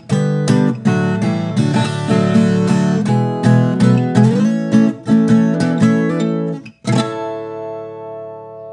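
Closing instrumental of a country ballad: an acoustic guitar plays a quick run of plucked notes, breaks off just before the end, then strikes a final strummed chord that is left to ring and fade.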